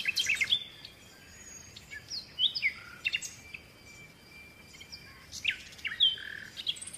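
Songbirds chirping and calling in short, quick, sweeping high notes. The notes come thick in the first half second, then in scattered calls with short gaps between.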